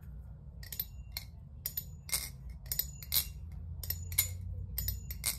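Machinewise Maryn balisong being flipped: a quick, uneven run of sharp metallic clacks, about three a second and often in pairs, each with a short ring, as the handles swing and snap against each other.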